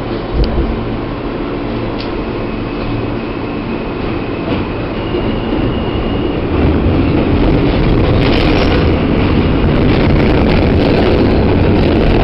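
New York City subway train pulling out of the station and picking up speed, heard from inside the car as a steady rumble of wheels and rails. A thin high tone steps up in pitch a few seconds in, and the noise grows louder about halfway through as the train runs into the tunnel.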